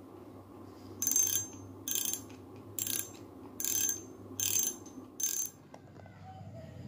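Daido Daimos 1000 spinning reel being worked by hand: six short, high-pitched mechanical bursts a little under a second apart, over a faint low hum.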